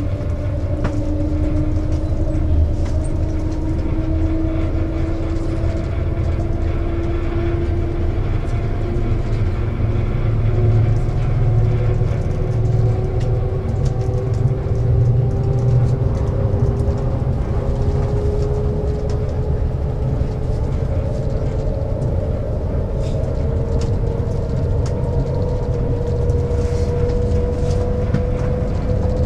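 Cabin noise of the Shanghai maglev train accelerating from about 90 to 150 km/h: a steady low rumble with a tone that slowly climbs in pitch as the speed builds.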